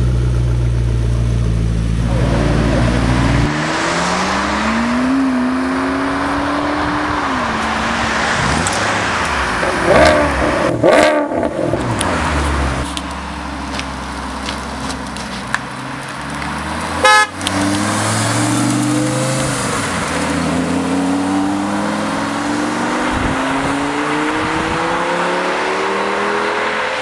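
Supercar engines: a McLaren 12C's twin-turbo V8 idling with a steady low hum, then revs rising and falling. A car horn sounds briefly around the middle. Near the end a Lamborghini Gallardo's V10 accelerates away, its pitch climbing steadily.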